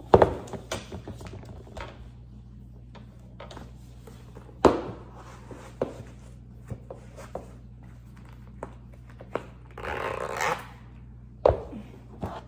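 Handling a pair of black boots on a floor: a knock as they are set down just after the start, then scattered taps, knocks and rustles as a boot is pulled on, with a longer rustle near the end.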